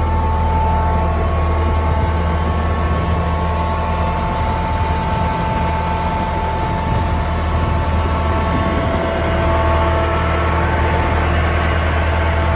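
Engine of a Link-Belt truck-mounted crane idling steadily: a continuous low drone with faint steady higher tones above it.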